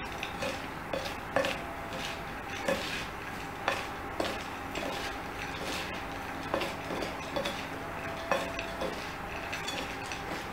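Two plastic spoons tossing dry roasted chickpeas with chopped tomato and onion on a plate, with irregular clicks and scrapes of spoon on plate about once a second.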